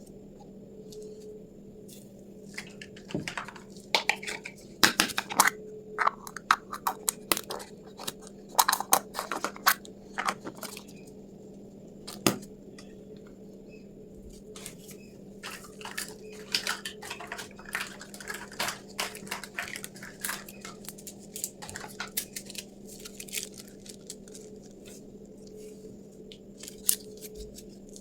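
Small plastic toy kitchen pieces being handled and set down, making irregular light clicks and clacks in quick flurries. A faint steady hum runs underneath.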